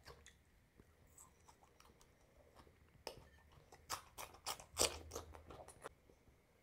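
Close-miked chewing and wet mouth sounds of a person eating curry and rice. After a quiet first half, a run of sharp clicks and crunches comes about three seconds in and lasts a few seconds.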